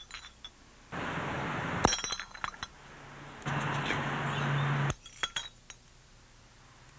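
Glass beer bottles clinking in two short clusters of light knocks, about two seconds in and again about five seconds in, between stretches of steady hiss that start and stop abruptly.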